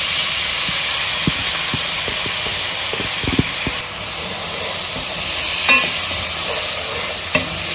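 Chopped onions sizzling as they fry in hot oil and butter in a nonstick kadai, stirred with a spatula that knocks the pan now and then.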